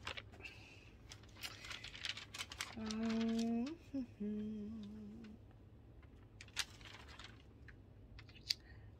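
Pages of a glossy magazine rustling and crinkling as they are handled and turned, with scattered light paper clicks. A woman hums two short, low notes about three seconds in.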